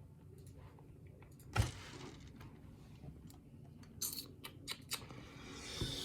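Small metal lock parts handled on a work surface: a knock about a second and a half in, then a cluster of light metallic clicks around four to five seconds in.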